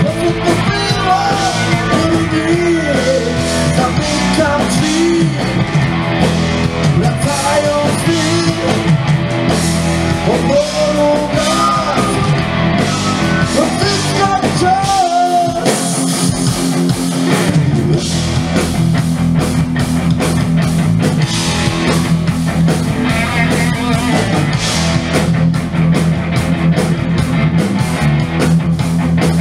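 Live blues-rock band playing loud through a PA: electric guitars, bass, keyboard and drums, with singing over the band in the first half. About halfway through the bass drops out for a moment, then the band settles into a steady, repeated riff.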